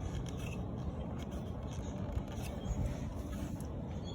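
Faint scraping and handling noises from hands and tools working on a motorcycle horn mount, over a steady low rumble.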